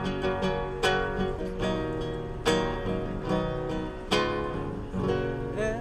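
Acoustic guitar played solo in an instrumental passage between sung verses. Chords are strummed with plucked notes between them, and the strongest strums come about every second and a half.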